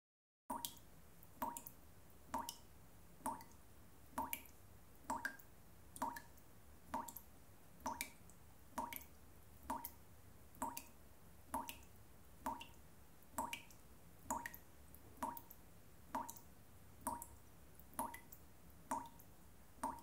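Tap dripping: single water drops falling at an even pace, about one a second, each a brief, clear drip, starting about half a second in. A faint steady low hum lies underneath.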